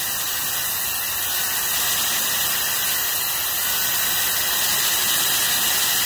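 POSEAG portable dog blow dryer running at its fourth fan level: a steady, even rush of air.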